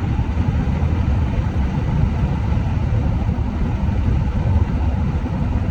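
A vehicle running: a loud, steady, low rumble.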